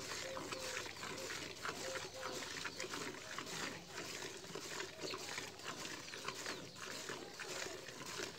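Milk squirting from a cow's teats into a steel bucket during hand milking: a rhythmic series of short hissing streams, about three a second.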